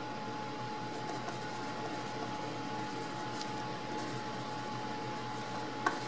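Lead of a Lamy Scribble 0.7 mm mechanical pencil scratching across paper in handwriting strokes, over a steady hiss and a faint steady tone. A single click near the end.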